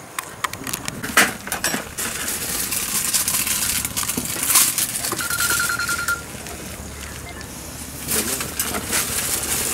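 Clicks, clinks and rustling as metal dart syringes and glass medicine vials are handled, with a quick run of sharp taps in the first two seconds.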